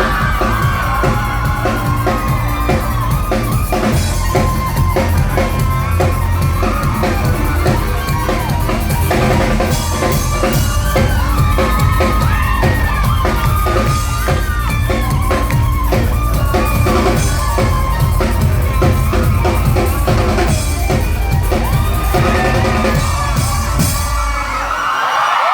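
Live rock band playing loud, with a pounding drum kit and bass under a bending lead electric guitar line. Near the end the band stops and the audience cheers and whoops.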